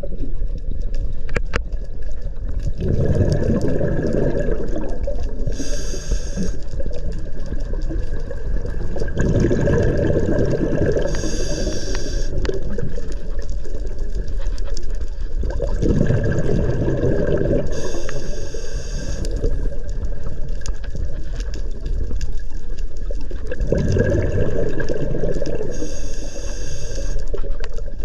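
Scuba diver breathing through a regulator underwater: four breaths about seven seconds apart, each a roughly two-second burst of exhaled bubbles followed by a short hissing inhale through the regulator.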